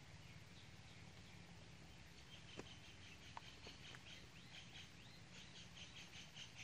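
Near silence with faint, quick bird chirps repeating from a little over two seconds in, over a low steady hum; two faint clicks near the middle.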